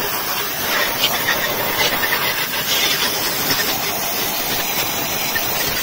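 Compressed-air blow gun hissing steadily as it blows out the cylinders and bolt holes of a bare engine block after deck sanding.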